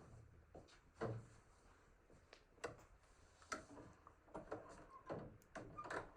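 A woman's hiccups: three sharp hiccups evenly spaced about two and a half seconds apart, with fainter clicks and taps between them.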